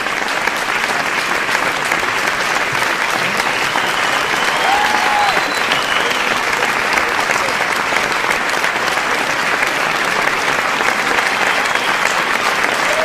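A large audience applauding steadily, with a few brief shouts rising out of the clapping about four to six seconds in.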